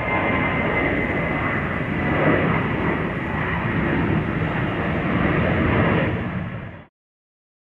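Jet engine noise from an Airbus A320-family airliner passing overhead: a steady rushing noise with a thin high whine. It cuts off abruptly to silence near the end.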